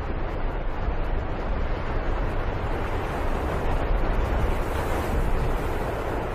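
Steady rumbling, rushing noise like wind, with a heavy low rumble, swelling slightly toward the middle and easing off near the end.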